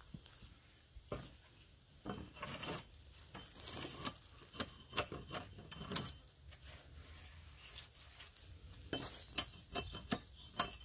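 Estwing camper's axe trimming branch stubs off a wooden tripod pole: irregular knocks and scrapes of the steel blade on the wood, coming in clusters.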